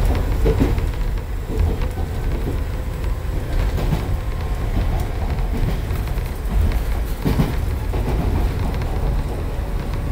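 A train running: a steady low rumble inside the carriage, with a couple of short knocks.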